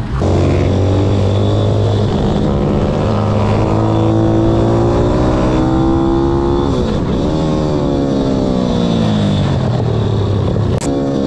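Single-cylinder motorcycle engine heard from an onboard camera, revving up in long rising pulls, dropping sharply about seven seconds in and then climbing again.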